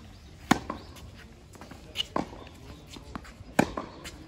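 Tennis groundstroke rally: two sharp racquet-on-ball hits close by, about three seconds apart, with fainter hits and ball bounces between them.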